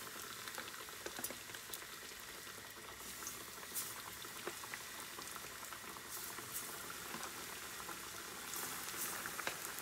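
Chicken drumsticks coated in potato starch deep-frying in corn oil at about 300 degrees: a steady bubbling sizzle with scattered pops and crackles as more pieces are lowered into the oil.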